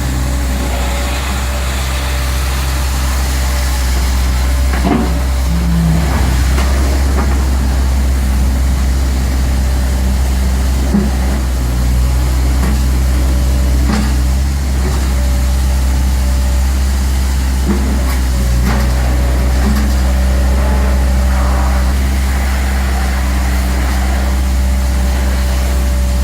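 JCB 8050 RTS mini excavator's diesel engine running steadily, its note shifting slightly a few times, with a few short knocks along the way.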